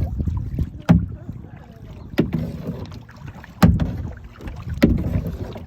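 Kayak paddle strokes, four in a row about every second and a quarter, each a sharp knock or splash as the blade catches the water. Between them water sloshes steadily against the hull, heard from inside the kayak.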